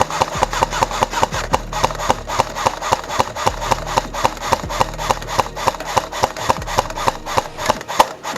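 Quick, regular footsteps with scraping and rustling, several a second, as an airsoft player moves fast on foot. The sound cuts off suddenly near the end.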